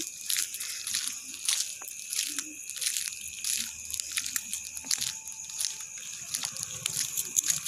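Irregular gritty crunching clicks of footsteps walking on a sandy road, over a steady high-pitched hiss.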